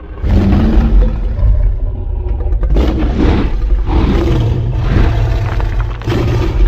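Giant movie-monster roar sound effect: a deep rumbling growl that swells in just after the start, then four rasping roars about a second apart over a continuous low rumble.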